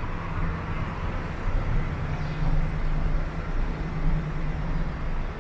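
City street traffic: a steady low rumble of vehicle engines with road noise.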